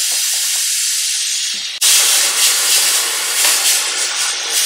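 Stovetop pressure cooker whistling: a loud, steady hiss of steam escaping through the weight valve, which jumps louder about two seconds in. The whistle is the sign that the cooker is at full pressure, and each one is counted to time the cooking.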